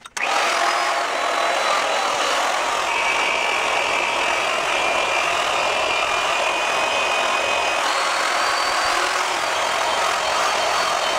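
Handheld electric rotary polisher running with its pad pressed on a drum shell's sparkle wrap, buffing it. It starts up suddenly right at the beginning and runs steadily with a thin motor whine over its noise.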